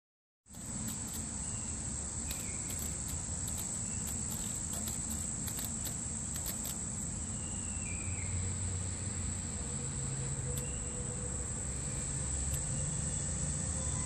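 Steady, unbroken high-pitched insect song, with a low rumble underneath.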